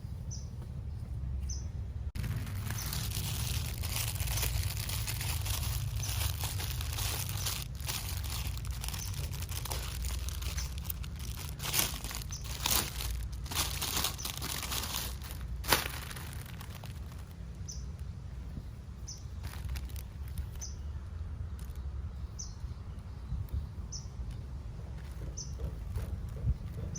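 Plastic packaging being crinkled and rustled by hand while a clothing parcel is unboxed, with sharp crackles that are loudest about halfway through and die away after about two-thirds of the way in. A steady low hum runs underneath.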